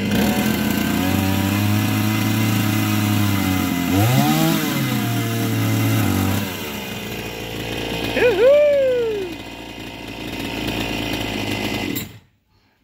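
Chainsaw cutting into a tree stump and its roots at ground level, the engine held at a steady speed that dips and recovers about four seconds in. After about six seconds it drops back, is revved up once and falls again near eight seconds, and the sound cuts off abruptly near the end. By the owners' account the saw has no power and will not cut.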